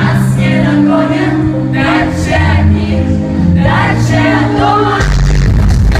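Live pop-rock concert sound: a female lead vocal over bass and band, loud and distorted because it comes from a nearby PA loudspeaker. About five seconds in, the singing stops and the full band comes in heavier and denser.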